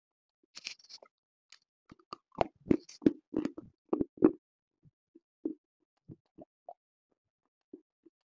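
Close-miked crunching of a hard black chalk-like chunk being bitten and chewed. A brittle crackle comes about half a second in, then a dense run of loud crunches from about two to four and a half seconds, thinning to occasional softer chews.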